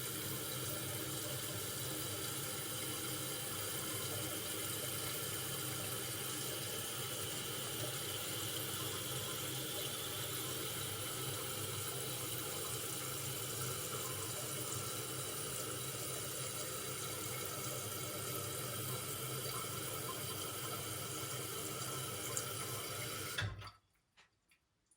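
Toilet tank refilling through its fill valve: a steady hiss of running water that cuts off suddenly near the end as the tank reaches its fill line and the valve shuts. The valve shutting off is the sign that the cleaned flapper is now sealing and the tank has stopped leaking.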